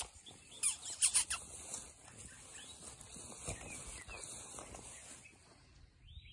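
Six-week-old puppies at play, with small high squeaks and whines and a cluster of sharp yips about a second in.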